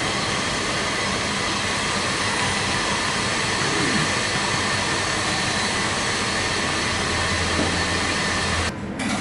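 Steady, even rushing noise of running kitchen machinery, with a low hum joining in near the end before it cuts off suddenly.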